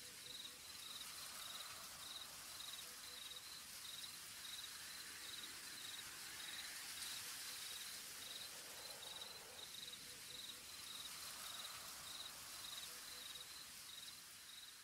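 Faint cricket chirping, a steady pulsing trill over a soft hiss, growing fainter near the end.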